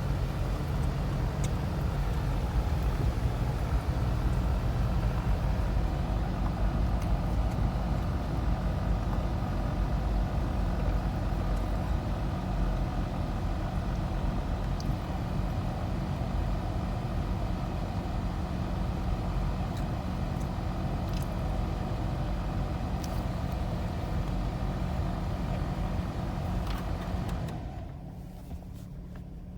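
Nissan VG33E 3.3-litre V6 idling roughly, a rough idle the owner puts down to a knock sensor fault code. The sound is steady for most of the time, then drops noticeably in level near the end.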